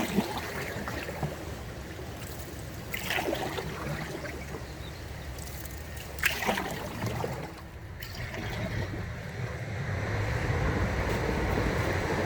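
Canoe paddle strokes in the water, a splash and drip about every three seconds. Wind on the microphone grows steadily near the end.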